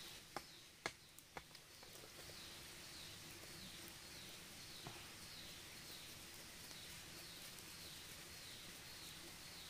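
Faint forest ambience with a high, repeating call recurring roughly every half second. A few sharp snaps of twigs at a small campfire come in the first second and a half.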